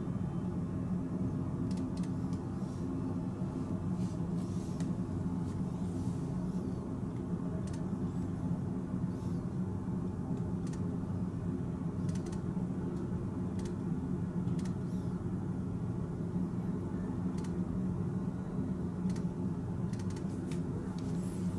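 Steady low hum of indoor room tone, with a few faint ticks now and then.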